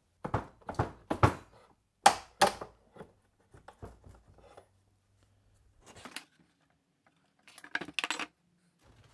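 A string of sharp knocks and clacks from hard objects being handled and set down. Five loud knocks come in the first three seconds, softer ones follow, and a quick cluster of clacks comes near the end.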